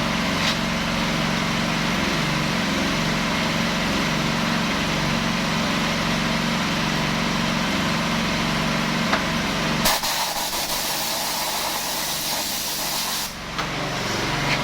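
A Honda GXH50 small four-stroke engine on a portable fire pump running steadily. About ten seconds in, the engine note drops away and a loud, even hiss takes over for about three seconds, then the engine sound returns.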